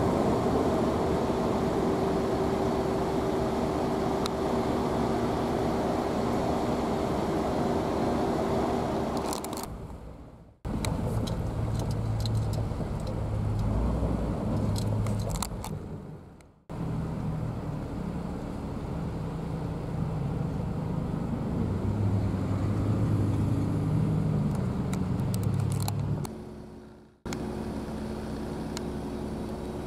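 Diesel engines of railroad maintenance-of-way machines running, a steady hum with a held tone, with scattered sharp clicks. The sound fades out briefly three times, each time coming back with a different engine note.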